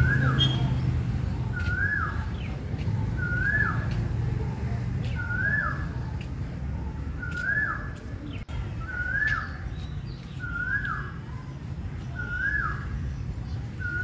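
A bird calling a single short whistled note that rises and falls, repeated about once every second and a half, over a steady low background rumble.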